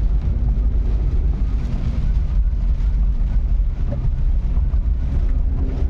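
Steady low rumble of a moving vehicle, with some wind buffeting on the microphone.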